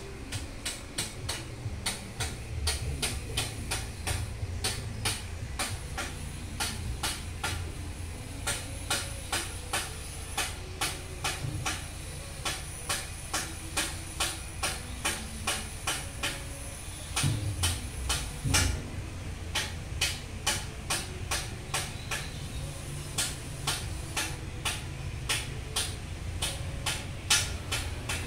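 A machine running steadily: a low rumble with sharp, evenly spaced clicks about three a second, which pause briefly about two-thirds of the way through where two heavier thumps come.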